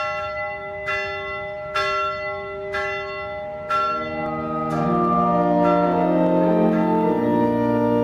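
A church bell tolling, five strokes about a second apart, each ringing on. About halfway in, organ chords come in and grow fuller as the bell fades.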